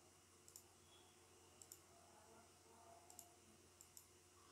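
Faint computer mouse clicks over near-silent room tone: four quick press-and-release pairs, spaced about a second apart.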